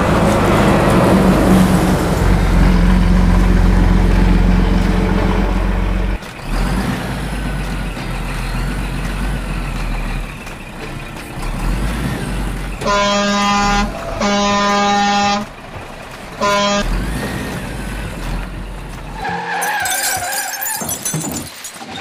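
Truck engine sound running at a steady low rumble, then three truck horn blasts about two-thirds of the way through, two long and one short. A brief wavering tone follows near the end.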